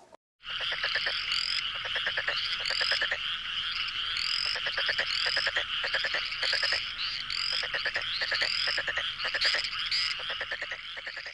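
Chorus of frogs croaking: repeated bursts of rapid clicking pulses over a dense, continuous trill. It starts just after a brief silence and fades out near the end.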